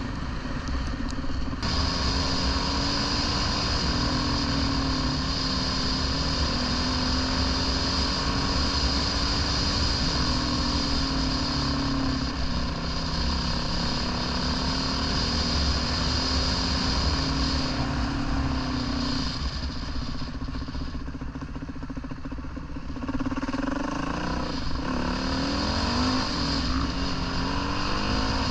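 Dirt bike engine running while riding, its pitch rising and falling as the throttle is worked. It eases off for a few seconds about two-thirds of the way through, then picks up again.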